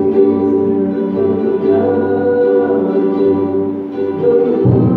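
A man singing to his own strummed ukulele accompaniment, a song-ballad performed through a microphone.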